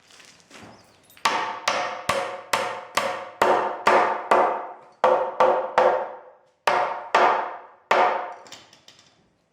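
Hammer blows, about two a second, after a couple of light taps, each strike ringing briefly, stopping a little before the end.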